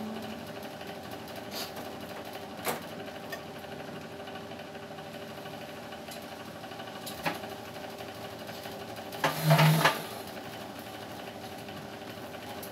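Steady mechanical hum of a split-type air conditioner's indoor unit running. A few sharp clicks and knocks sound over it, the loudest a short clatter about nine and a half seconds in.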